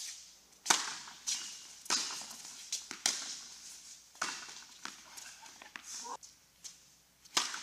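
Doubles tennis rally on an indoor hard court: a serve struck about a second in, then rackets hitting the ball and the ball bouncing. The hits are sharp pops roughly once a second, echoing in the hall.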